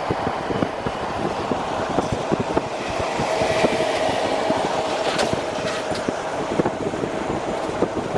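Road and wind noise of a vehicle travelling at speed on an elevated expressway: a steady rush full of irregular rumbling knocks, with a hum coming through in the middle.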